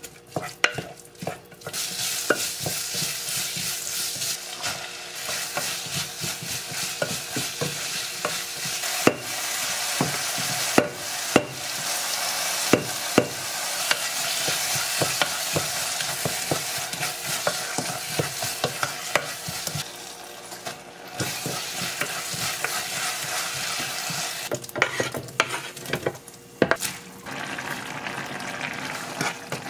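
Food sizzling in a pot while a wooden spatula stirs and scrapes it, with scattered sharp knocks of the spatula against the pot; the sizzle eases off about two-thirds of the way through, then picks up again.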